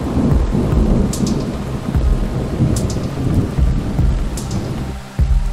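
Thunder rumbling continuously over steady rain, with a fresh, louder peal breaking in suddenly near the end.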